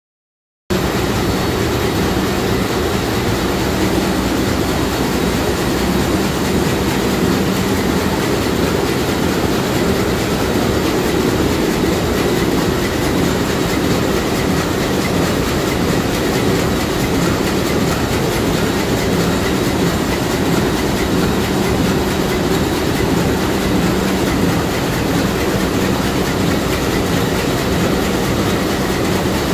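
Sulzer 6RTA62 six-cylinder two-stroke slow-speed marine diesel main engine running at full speed, heard up close in the engine room: a loud, steady mechanical din with a low hum. It cuts in suddenly less than a second in.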